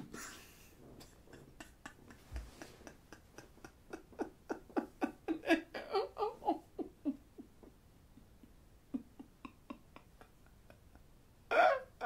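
A man's stifled, breathy laughter: a run of short chuckles at about three a second that builds, peaks and dies away. Near the end it breaks into a few louder bursts of laughter.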